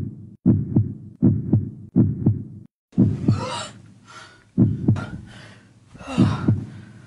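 Heartbeat sound effect: paired low thumps, at first about a pair every 0.7 s, then slowing to about one every 1.5 s after about three seconds. Two breathy rushes of noise come over it, about three seconds in and about six seconds in.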